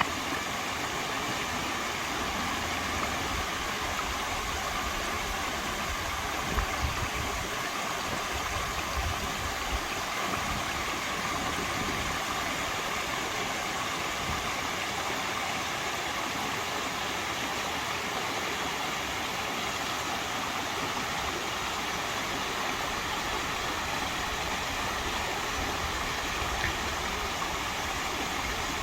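Mountain valley stream flowing: a steady, constant rush of water, with a few brief slightly louder moments about six to ten seconds in.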